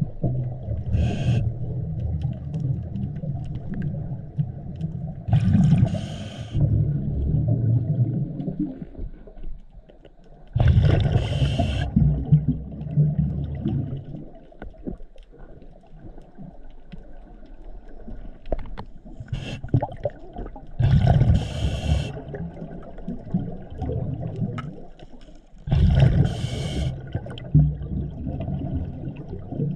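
Scuba regulator breathing picked up underwater by the GoPro: short hissing inhales and long, low rumbling bursts of exhaled bubbles in a slow cycle that repeats about every five seconds.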